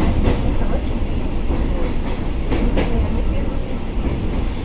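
Commuter train carriage in motion: a steady low rumble of wheels on rails. Now and then the wheels clack over rail joints, with two clacks close together past the middle.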